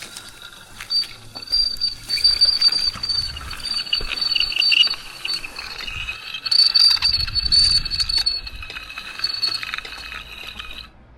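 Rigging rope running through a lowering device or block as a cut section of the tree is let down, giving a steady high squeal that swells and fades and stops abruptly near the end.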